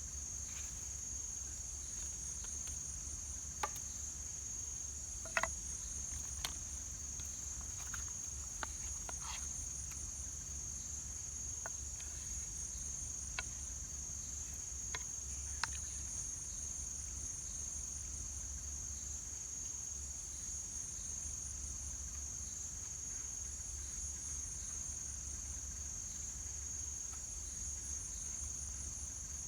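Steady high-pitched insect chorus, crickets trilling without a break, over a low rumble. A few sharp clicks or taps sound in the first half.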